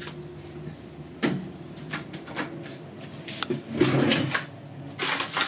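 Kitchen handling noises: a few light knocks and clicks of containers and utensils being moved about, over a faint steady hum, then a short rustle near the end.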